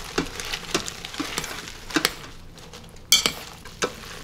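Chopsticks stirring spinach and pearl couscous in a stainless steel pressure-cooker pot, tapping and clicking irregularly against the pot, with one sharper clack about three seconds in.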